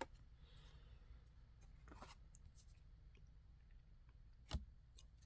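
Near silence with faint handling of trading cards: a few soft clicks and light rustles as cards are shuffled, with one sharper tap about four and a half seconds in.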